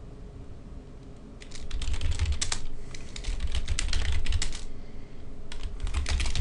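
Typing on a computer keyboard: a quick run of keystrokes starting about a second and a half in, a short pause, then a second run near the end.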